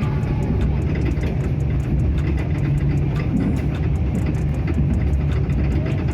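Running noise of a KAI Ekonomi New Generation passenger coach: a steady low rumble with many quick, irregular clicks and rattles throughout. This is the odd noise the uploader attributes to the coach's bogie.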